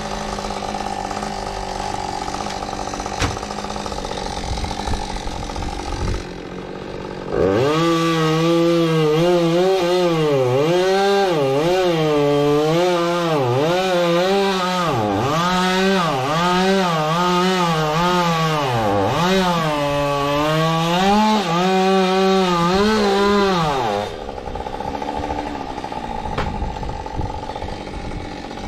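Chainsaw running steadily, then opened up to full throttle about seven seconds in and cutting wood for about sixteen seconds, its pitch dipping and recovering again and again as the chain bites, before easing back off.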